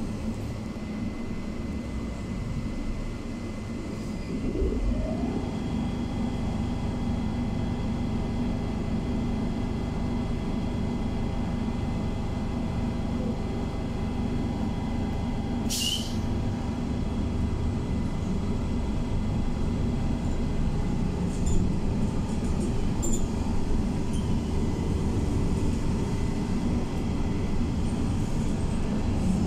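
Cabin of a BKM 321 trolleybus under way: steady rumble of road and running gear, with the electric traction drive's whine rising in pitch about five seconds in and then holding as a steady set of tones.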